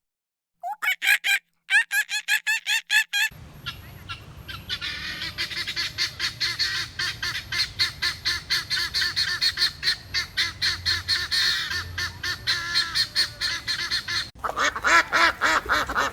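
Domestic fowl honking and cackling in quick, repeated calls, in short clips cut together: a short burst of calls, then a longer stretch of a flock calling busily over steady background noise, then louder calls near the end.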